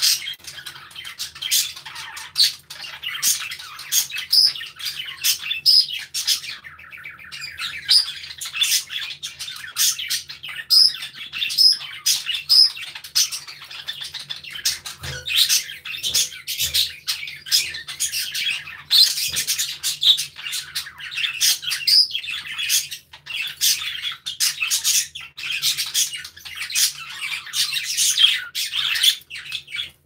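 A flock of budgerigars chattering, with many overlapping short, sharp chirps and squawks that run on without a break.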